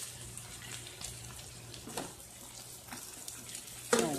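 Milk bubbling and sizzling in a hot frying pan under fried provision topped with grated cheese: a faint, steady hiss with a few small clicks. A short, louder clatter near the end.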